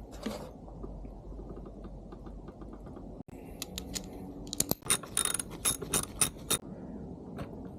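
Hand tools clicking and rattling against metal as a motorcycle mirror is unbolted: a light run of small ticks, then after a sudden break a busier patch of louder clicks and clatter.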